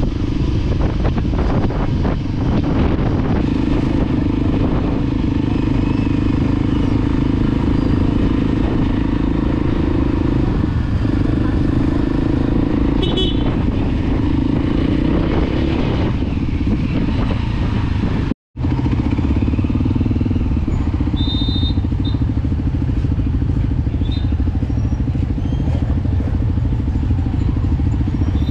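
Motorcycle engine running steadily under way, heard from the rider's own bike, with a brief dropout about two-thirds of the way through. A couple of short high toots sound over it.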